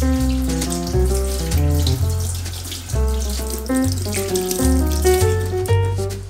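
Instrumental background music with a bass line and plucked melody notes, over a tap running into a kitchen sink.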